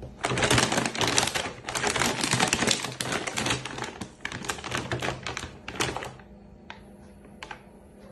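Plastic pet food bag crinkling and rustling as it is shaken hard, for about six seconds, then a few scattered crinkles.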